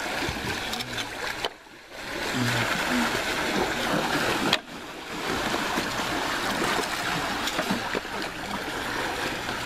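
Swimming-pool water splashing and churning as several people wade through it, a steady rushing, sloshing noise that drops away briefly about a second and a half in and again, suddenly, a few seconds later.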